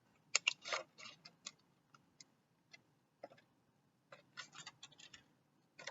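Small pre-cut holes being punched out of a pinwheel sheet by hand: irregular light clicks and pops, a few at a time, in little clusters.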